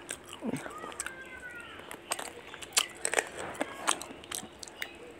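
Close-miked mouth sounds of a person eating spicy chicken curry: chewing with wet lip smacks and many sharp clicks at an irregular pace.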